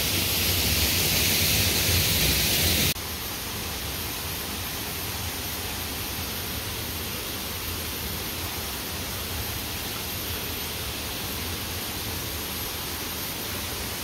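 Steady rush of flowing water from a jungle stream, an even hiss with no rhythm. It drops suddenly in level about three seconds in, then carries on steadily.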